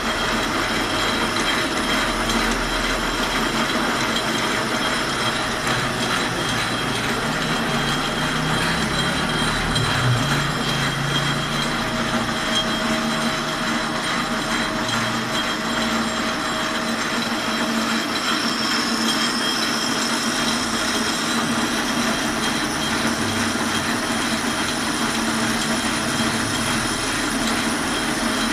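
Metal lathe running under power: a steady mechanical drone with the constant whine of its geared headstock, and a brief higher squeal for a couple of seconds about two-thirds of the way through.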